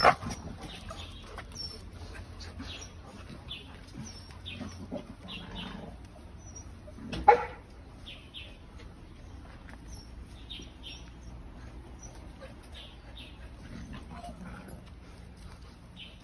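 A dog barks briefly at the start and once loudly about seven seconds in. Faint short high chirps come and go throughout.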